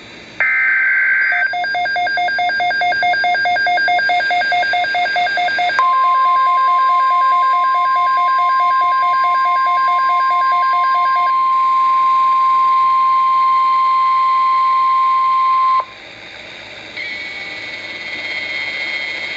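Emergency alert tones from a NOAA Weather Radio tornado watch broadcast. About half a second in comes a one-second burst of warbling data tones. Rapid pulsing beeps in several pitches follow, and at about six seconds the single steady 1050 Hz warning alarm tone joins them, holding for about ten seconds before it cuts off suddenly.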